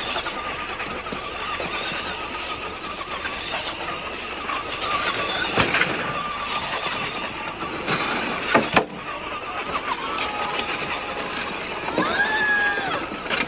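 Radio-controlled cars driving through snow, their motors whining steadily over the hiss of the tyres, with a few sharp knocks partway through.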